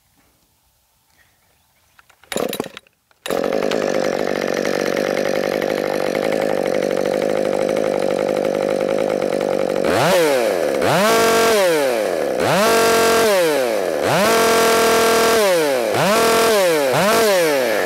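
Two-stroke chainsaw started about two seconds in: a brief burst of firing, then it catches and runs at a steady idle. In the second half it is revved up to full throttle and let back down to idle about five times in a row.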